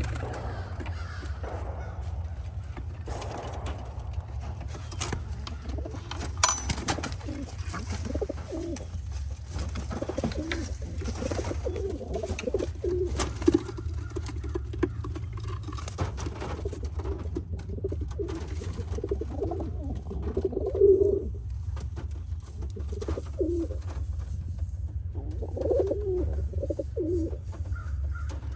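Pigeons cooing, call after call, over a steady low rumble with scattered faint clicks.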